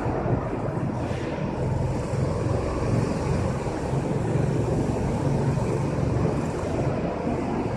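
Go-kart engine running steadily while the kart is driven, a dense, even rumble.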